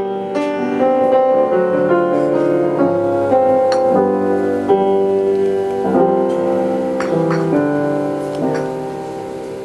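Piano playing a slow instrumental lead-in of sustained chords, a new chord or note struck about every half second to a second and ringing into the next.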